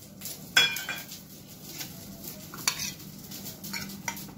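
Stainless-steel bowl and mixer-grinder jar clinking and scraping as dry roasted seeds and fried onion and cashew pieces slide in. A sharp clink about half a second in is the loudest, with a few lighter knocks later.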